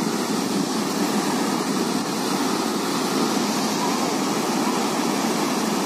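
Floodwater pouring through open dam sluice gates and churning in the spillway below: a steady, even rush of water.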